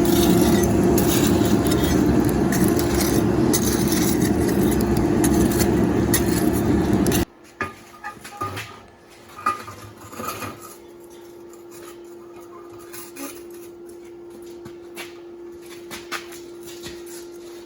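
A loud steady roar with a low hum, from shop equipment, cuts off abruptly about seven seconds in. After it come scattered light metallic clinks and knocks of steel being handled, over a faint steady hum.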